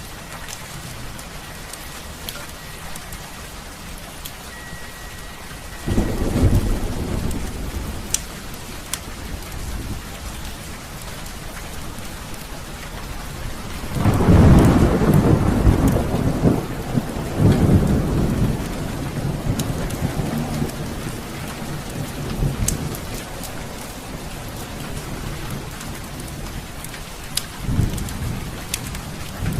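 Heavy rain falling steadily, with rolls of thunder: one about six seconds in, a loud, long one about halfway through, another just after it, and a shorter one near the end. Occasional sharp crackles from a wood fire.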